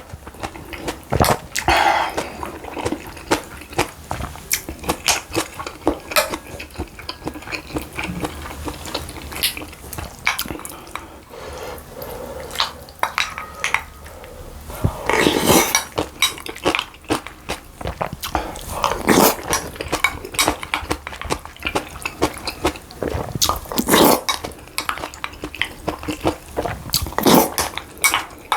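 Eating at the table: spoon and chopsticks clicking against bowls and plates, with chewing, and several louder bursts about halfway through and near the end.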